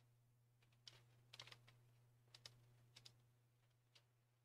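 Near silence with a few faint computer clicks, several in quick pairs, over a steady low hum.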